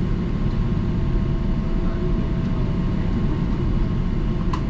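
Inside a stopped TTC streetcar: a steady low rumble from the idling car with a faint steady electrical hum over it, and a couple of sharp clicks shortly before the end.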